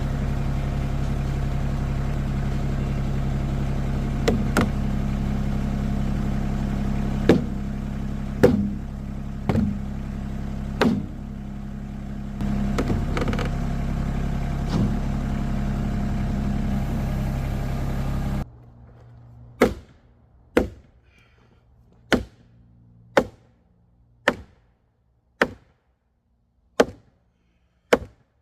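A machine's engine runs steadily with occasional clanks and knocks. About two-thirds of the way through, the engine sound cuts off suddenly. Then come sharp knocks, roughly one a second.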